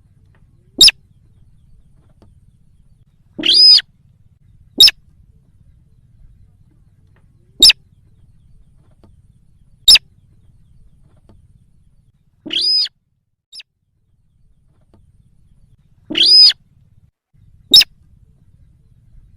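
Recorded sintar lure call playing on repeat: short, sharp single calls every two to three seconds, broken three times by a longer, harsher call.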